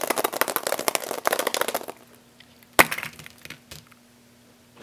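Hollow plastic surprise egg rattled in the hand: rapid clattering for about two seconds, then one sharp plastic click and a few lighter clicks as the shell halves are handled.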